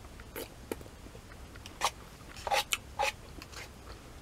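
Close-up chewing of udon noodles: a string of short, wet mouth clicks and smacks, several of them close together in the middle.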